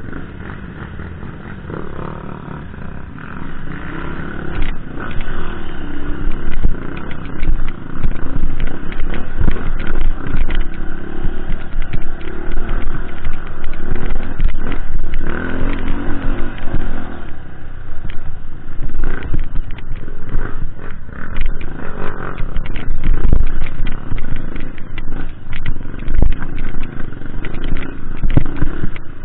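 Off-road dirt bike engine running under constantly changing throttle as it is ridden over rough forest singletrack, getting louder about four seconds in, with clatter and knocks from the bumpy ground and wind buffeting on the microphone.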